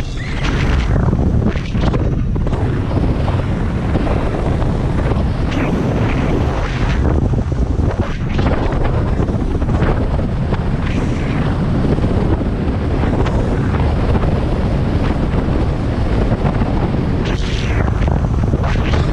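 Strong wind buffeting the microphone on an open boat, a dense low rumble that surges and eases unevenly.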